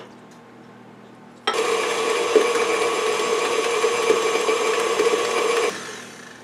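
KitchenAid bowl-lift stand mixer switched on about a second and a half in, its motor running with a steady whine as the paddle beats the remaining egg mixture into the batter, then winding down shortly before the end. A small click sounds at the very start.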